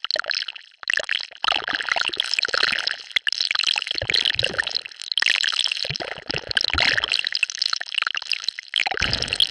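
Designed sci-fi sound effect of an alien virus mutating: a dense, wet, bubbling crackle of many small ticks. Deeper gurgling surges come in about four seconds in, again around six seconds, and near the end.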